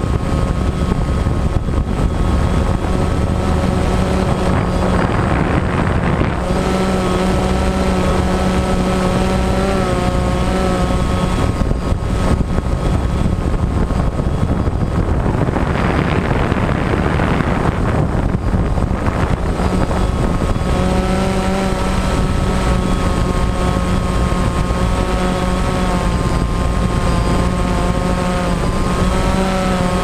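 DJI Phantom quadcopter's motors and propellers whining steadily while it hovers, heard from the camera slung beneath it, the pitch wavering slightly as the motors adjust. A rushing noise swells over the whine about sixteen to nineteen seconds in.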